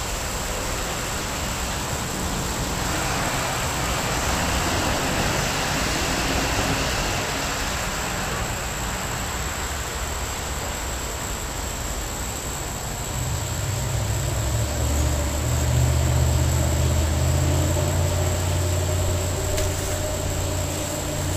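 A distant engine drone over a steady outdoor hiss. The drone swells about two-thirds of the way in and fades near the end.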